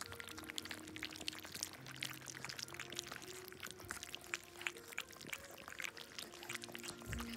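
Golden retriever puppies lapping milk from a stainless steel bowl: a fast, uneven patter of small wet licking clicks from several tongues at once.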